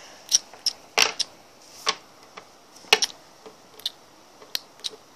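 Small plastic toy figurine tapped and hopped across a wooden tabletop: a string of sharp, irregular clicks, about a dozen, the loudest about a second in and near three seconds in.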